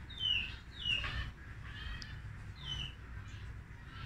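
A bird calling: three short chirps that slide downward in pitch, about a third of a second, one second and two and a half seconds in, over a low background rumble.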